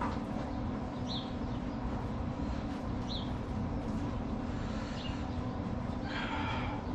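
Steady low machine hum. A short, high, falling chirp comes about every two seconds, and a brief scratchy noise sounds about six seconds in.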